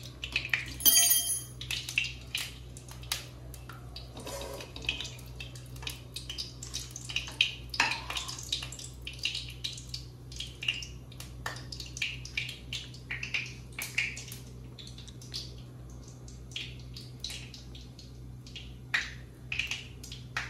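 Household kitchen clatter: dishes and cutlery clinking and being set down, with irregular short knocks and clinks throughout and one ringing metallic clink about a second in, over a steady low hum.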